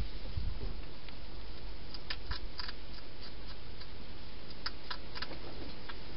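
Wild hedgehog crunching dry food from a bowl inside a plastic feeding box: two quick clusters of sharp crunches, about two seconds in and again near five seconds, over a steady hiss.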